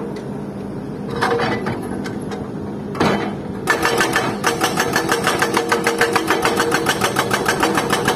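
Hydraulic rock breaker on a Volvo excavator hammering rock in rapid, even blows, over the excavator's diesel engine running steadily. The hammering comes in short spells at first, then runs on without a break from about three and a half seconds in.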